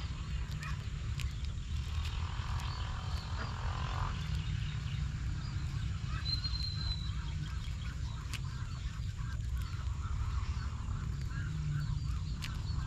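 Birds calling in the background, with one short high whistled note about six seconds in, over a steady low hum.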